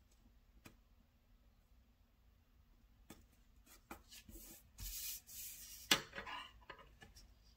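Paper planner pages being handled and slid across a tabletop: a few light taps, then a stretch of rustling and rubbing about two thirds through that ends in one sharp tap.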